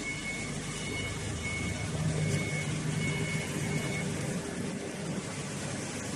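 Steady machinery hum with a high beeping tone that pulses about twice a second, stopping about two-thirds of the way through.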